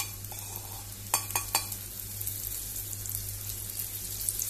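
Semolina-coated breadfruit slices sizzling in freshly poured oil on a hot flat pan, a steady hiss with a few sharp crackles about a second in.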